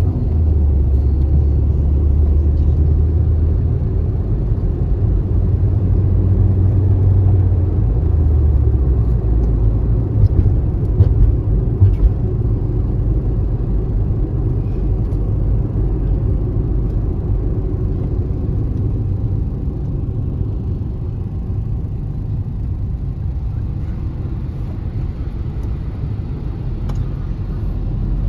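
Engine and road noise of a moving car heard from inside the cabin: a steady low rumble, with a few short knocks about ten to twelve seconds in.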